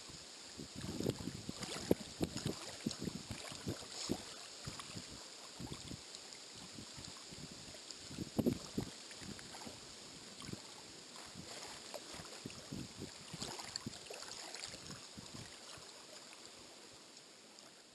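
Small waves lapping and splashing irregularly on a pebble shore. The sound fades out near the end.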